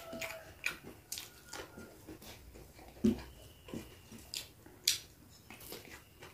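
Quiet close-up eating sounds: a person chewing with mouth smacks while fingers pick at rice on a banana leaf, giving scattered short clicks, with two soft thumps about three seconds in.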